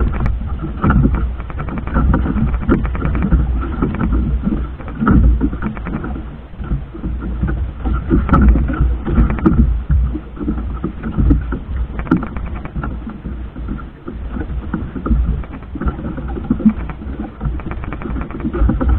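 Motorized fishing boat's engine running at sea, with a rapid, even beat under a heavy, fluctuating rumble.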